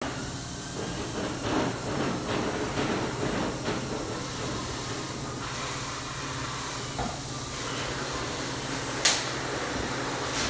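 Steady low hum of shop equipment with a hiss over it. Rustling and handling noises in the first few seconds as leather welding gloves are handled and put on, then a single sharp knock about nine seconds in.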